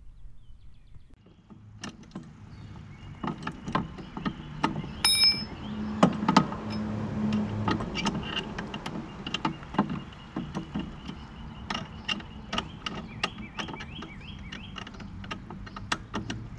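Metal clinks and knocks of steel brackets, bolts and tools being handled as striping-kit brackets are bolted onto a mower frame, many separate sharp strikes scattered throughout.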